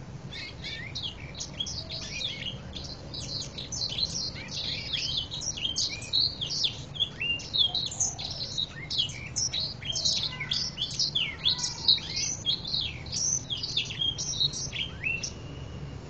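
Domestic canary singing a long, fast, varied song of quick high chirps, sweeps and trills, starting just after the start and stopping shortly before the end.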